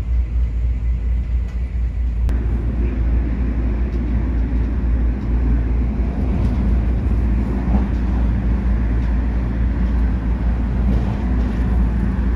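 Passenger train running, heard from inside the carriage: a steady low rumble that grows louder and fuller about two seconds in.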